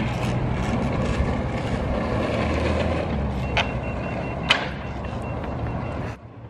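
Skateboard wheels rolling over asphalt, a steady rumbling noise. Two sharp clicks come about three and a half and four and a half seconds in, with a faint quick high beeping between them, and the rumble cuts off suddenly near the end.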